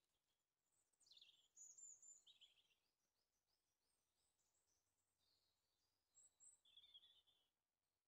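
Faint songbird calls and song: a couple of quick high falling notes, then a run of short repeated notes, and a brief brighter phrase near the end.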